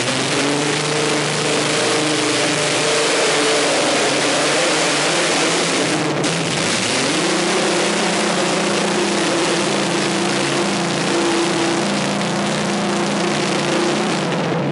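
Twin Rolls-Royce Griffon V12 aero engines of a modified pulling tractor running at full power, dragging the weight sled down the track. The note rises as it pulls away, sags about six seconds in and climbs again.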